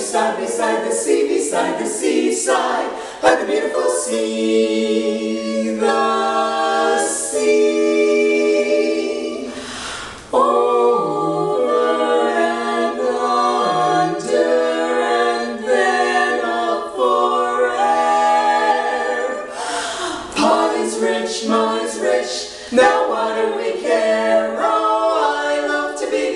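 Women's barbershop quartet of four voices singing a cappella in close harmony. Quick, choppy phrases at the start give way about ten seconds in to long held chords, and the quicker phrasing returns for the last few seconds.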